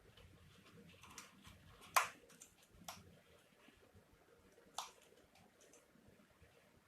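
A few sharp clicks and taps of small hard parts or tools being handled during the disassembly of an espresso machine. The loudest comes about two seconds in, with lighter ones around three and five seconds, over faint room tone.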